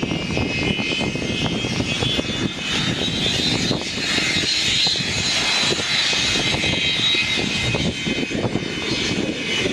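Aircraft engine running on the ground: a steady high whine that rises slightly in pitch over the first few seconds and then holds. Wind rumbles on the microphone underneath.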